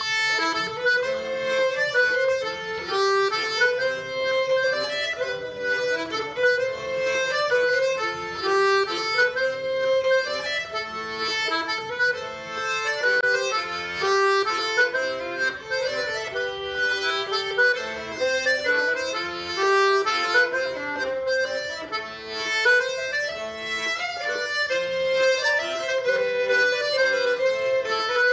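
Accordion playing a traditional Breton dance tune, a melody that repeats in short phrases over a steady beat.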